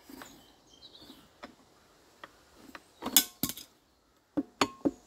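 Sharp metal clinks and knocks of an adjustable spanner on the crankshaft pulley nut of an Enfield twin diesel engine, the spanner working a nut that will not fully tighten. A pair of loud clanks comes about three seconds in and a quick run of clinks, one briefly ringing, a second later.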